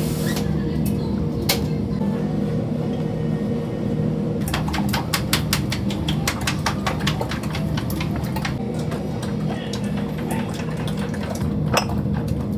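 Steady restaurant-kitchen hum with quick, light clicks and clinks. A dense run of several clicks a second starts about four and a half seconds in and lasts about four seconds; single clicks follow, with a sharper one near the end.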